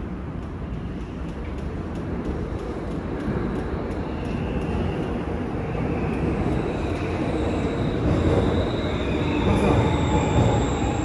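Korail Class 341000 electric subway train pulling into an underground station, its rumble growing steadily louder. High-pitched squealing and whining tones come in about four seconds in and build toward the end as it slows.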